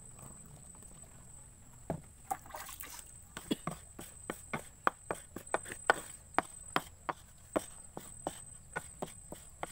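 A flat metal scraper knocking and scraping on wooden sugar moulds while thick cooked coconut sugar is spread into the cups. It makes a run of sharp clicks, about three a second, starting about two seconds in.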